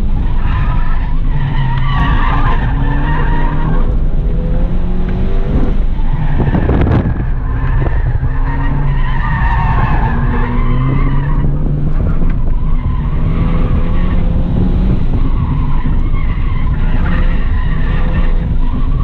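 Stock 2014 Ford Fiesta ST's turbocharged 1.6-litre four-cylinder, heard from inside the cabin, with the revs rising and falling as the car is driven hard through an autocross course. The Bridgestone RE-71R tyres squeal through the corners. A short rush of noise comes about seven seconds in.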